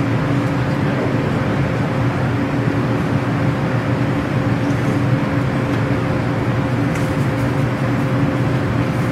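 Steady mechanical hum and hiss, with a few even tones held at one pitch throughout, and a few faint small clicks.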